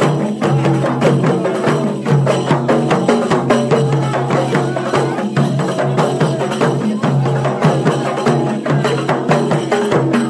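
Hand-beaten frame drums (rebana) played in a quick, steady rhythm, with a group of men's voices chanting along.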